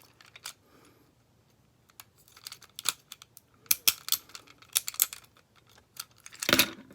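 Small metal tool ticking and scraping against a phone's motherboard and its metal shield covers: a quick run of light sharp clicks in the middle, and a louder scrape near the end.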